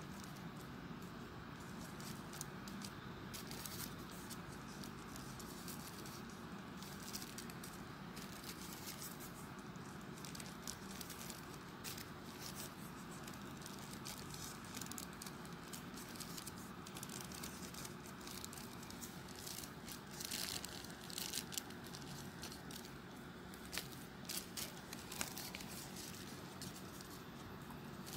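Folded paper units of a 3D origami model rustling and crinkling as they are handled and pushed into place, with short papery clicks that come more often in the last third, over a faint steady background hiss.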